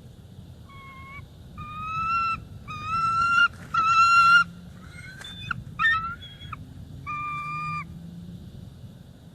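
Bald eagle calling: a series of about seven high, drawn-out piping notes, each half a second to a second long, loudest a few seconds in.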